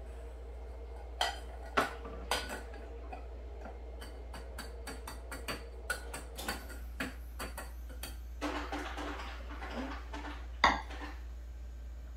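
Scattered light clinks and taps of a cocktail glass and a metal cocktail shaker being handled on a counter, with one sharper knock near the end.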